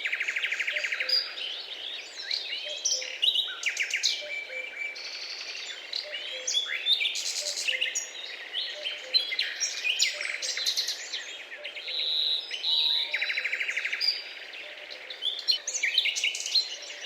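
A chorus of several songbirds chirping and whistling over one another, with rapid trills right at the start and again about twelve seconds in.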